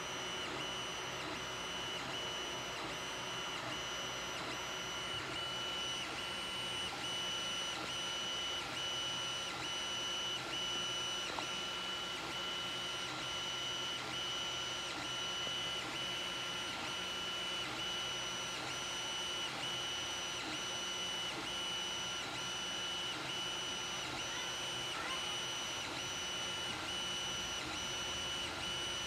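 Creality Ender 3D printer running a print: a steady whir from its fans and motors, with high tones that pulse evenly about twice a second.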